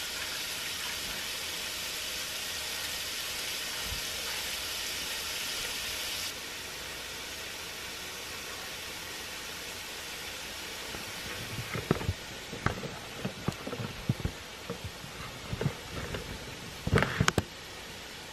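A steady hiss of the kitchen tap running at the sink over diced chicken sizzling in a frying pan; the louder hiss cuts off suddenly about six seconds in, leaving the fainter sizzle. From about twelve seconds on, irregular knocks and clatters as the camera is handled and moved, loudest near the end.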